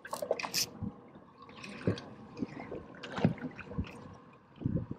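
Water sloshing and splashing around a small fishing boat, with a few scattered dull knocks.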